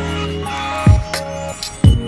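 Background electronic music: held synth chords over a deep kick drum that hits twice.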